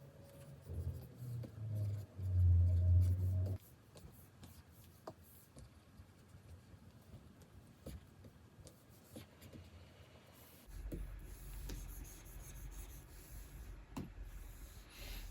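Wacom pen nib stroking and tapping on a Cintiq 24 Pro drawing screen: soft scratchy strokes with scattered light clicks. A low rumble, the loudest sound, runs for about three seconds near the start, and a softer low hum comes in about two-thirds of the way through.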